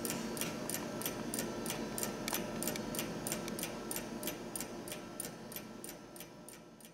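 Mechanical skeleton table clock ticking fast and evenly, over soft background music; both fade out near the end.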